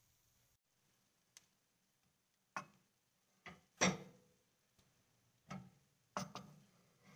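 A plastic serving spoon scooping cooked rice from a stainless steel pot into a ceramic bowl: a series of about seven short knocks and scrapes against the pot and bowl, the loudest about four seconds in.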